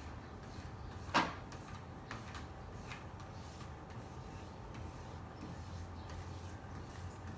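A single sharp knock about a second in, then a few faint taps, over a steady low hum: hands pressing and smoothing a vinyl decal onto a car's door panel.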